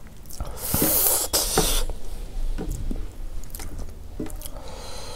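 Fingers mixing and squeezing rice with dal on a steel plate: a wet, hissy squishing, loudest between about one and two seconds in, with scattered soft clicks.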